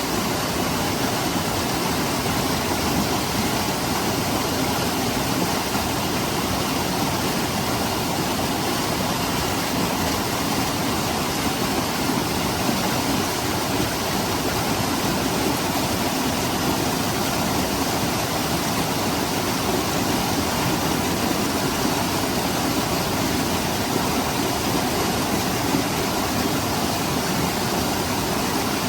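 Seasonal monsoon stream flowing over rocks and pebbles: a steady rush of water.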